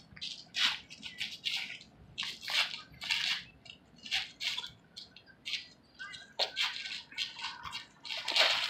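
Sounds of two boxers light sparring: a quick, irregular run of short hissy bursts, a few a second, the loudest near the end.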